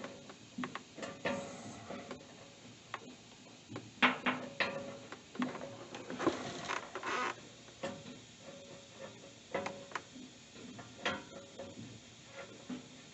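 Metal-on-metal clinks, knocks and scrapes of hand tools and bush hog blade hardware being handled and fitted. Scattered sharp clicks with short metallic rings, the loudest knock about four seconds in, and a stretch of scraping a couple of seconds later.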